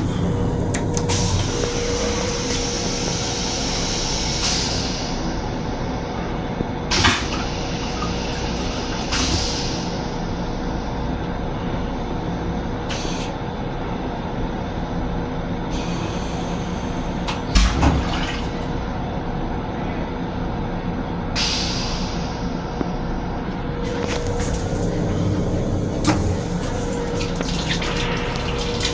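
Steady running noise inside a Metro-North M7 electric railcar, with a constant hum, broken by a few short knocks, the loudest about 18 seconds in.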